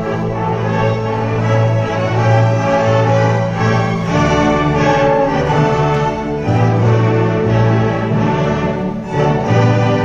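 Full orchestra of strings and winds playing live, loud and sustained, its bass notes changing every few seconds.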